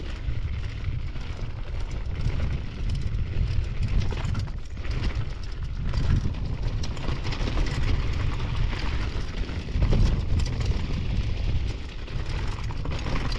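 Wind buffeting the microphone of a mountain bike's handlebar camera while the bike runs down a rocky dirt trail. Tyres crunch over gravel, and there is a constant rattle with many small knocks from the bike over the bumps.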